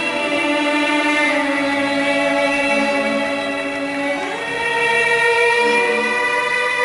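Program music for a figure skating routine: slow orchestral music with sustained choir-like voices.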